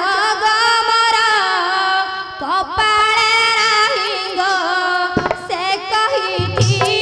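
A girl's voice singing a wavering, ornamented melody in Odia folk-theatre style over a steady held accompanying note. A few drum strokes come in near the end.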